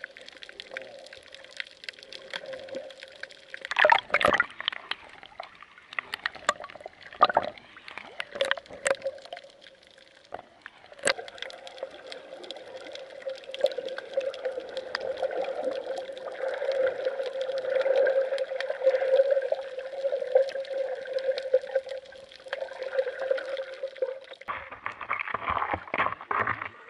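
Muffled water sloshing and gurgling heard through an underwater camera housing, with scattered splashes from a dog paddling and a snorkeler swimming at the surface. Near the end the camera comes up to the waterline and the splashing turns brighter and busier.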